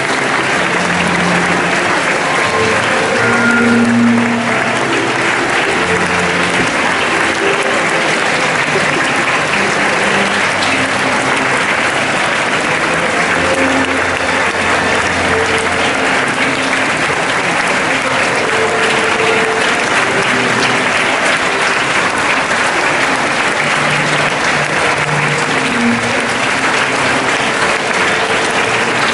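A large crowd applauding steadily, with instrumental music playing underneath.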